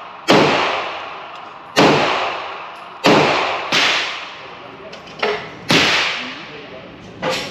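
Handgun shots at a shooting range: five loud reports spaced about a second or so apart, each followed by a long echoing tail, with two fainter shots in between.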